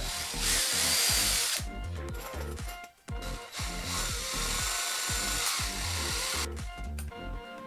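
Background music with a steady beat, over which a handheld power tool such as a drill whirs in two bursts: a loud one starting just after the beginning and lasting about a second, then a longer one from about four to six and a half seconds in.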